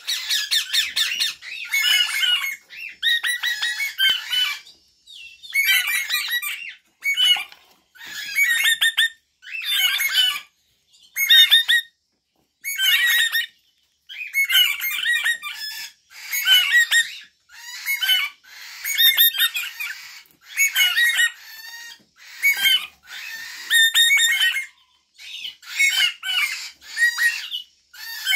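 Eastern rosella chicks begging while being spoon-fed hand-rearing formula: bursts of high-pitched calls, each about half a second to a second long, following one another with short gaps.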